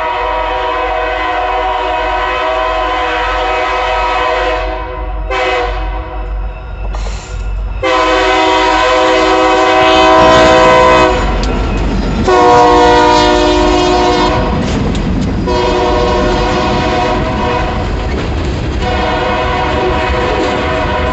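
Diesel freight locomotive air horn blowing for a grade crossing: a long blast, two short ones about five and seven seconds in, then several more long blasts. From about ten seconds in, the locomotives' engines rumble past close by, followed by the rattle and clickety-clack of freight car wheels.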